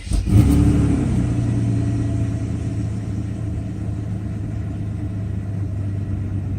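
Mercedes-Benz S600 (W140) V12 engine starting: it catches at the very start, runs loudest for about a second, then settles to a steady idle. The idle is held evenly by the repaired E-gas electronic throttle control module.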